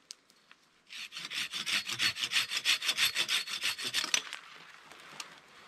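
Hand pruning saw cutting through a dead tree branch, with quick, even back-and-forth strokes. The sawing starts about a second in and stops after about three seconds.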